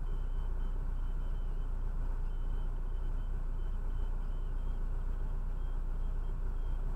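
Steady low rumble of a car driving, with a faint high tone breaking on and off above it.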